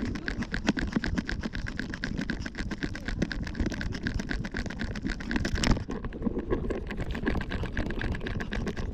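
A trotting Yorkshire terrier carrying a harness-mounted camera: a quick, steady run of clicks and scuffs from its steps and the jostling mount, with one louder knock about two-thirds of the way through.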